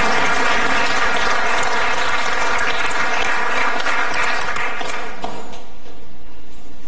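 Audience applauding, a dense clatter of many hands clapping that dies away about five or six seconds in.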